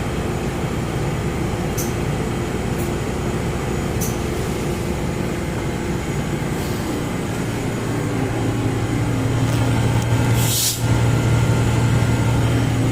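Steady machinery hum, with a low motor hum coming on about eight seconds in and a short sharp hiss like a burst of compressed air just before eleven seconds.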